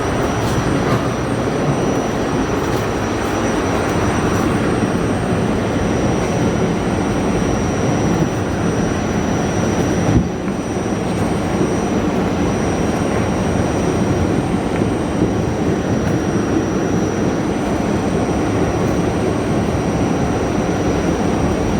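R68A subway car running between stations: a steady rumble of wheels on the rails and the motors, with faint high steady tones over it. There is a single knock about ten seconds in.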